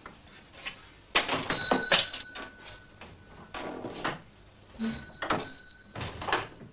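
A glazed shop door being opened and shut with clunks and rattles, and a shop door bell ringing twice: about a second and a half in, and again about five seconds in.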